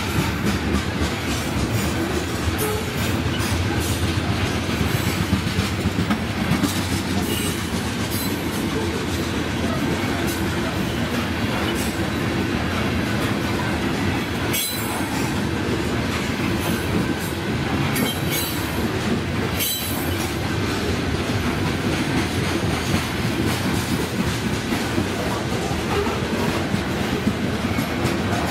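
A BNSF grain train rolling past: a steady rumble and rattle of wheels on rail, with a sharp click about halfway through and another a few seconds later.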